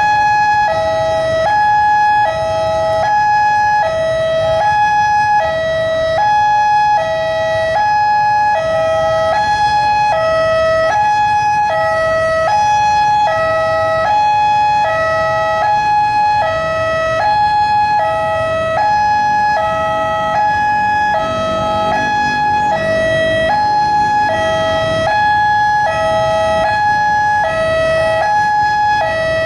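Railway level-crossing warning alarm sounding, a loud electronic two-tone high-low signal repeating steadily, warning that a train is approaching and the crossing gates are closing. Road traffic rumbles underneath, with an engine briefly louder a little past the middle.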